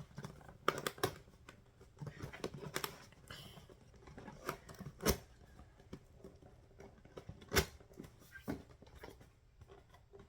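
Scattered clicks, taps and light knocks of items being handled while unpacking a nail kit, with two sharper knocks about five seconds in and near eight seconds.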